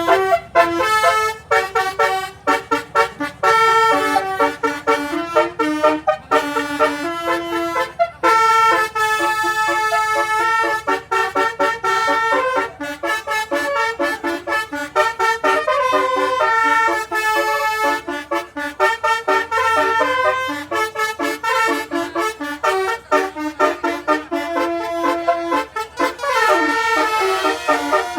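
Bus telolet horn, a Basuri-type multi-tone horn, playing a tune of quick changing notes, mostly short toots with some longer held notes.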